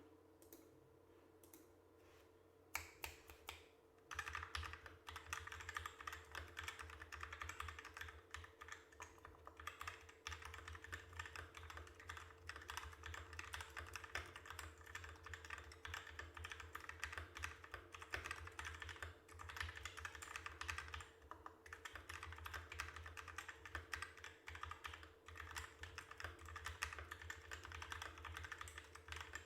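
Typing on a Nisuta GZ61 60% mechanical keyboard with Krytox-lubed Outemu Black linear switches fitted with 40 g springs. A few single keystrokes, then steady continuous typing from about four seconds in.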